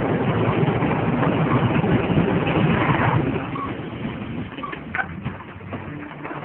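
Old pickup truck driving, its engine rumbling under a steady noisy wash. The sound is louder for about the first three seconds, then drops, with a few light clicks about five seconds in.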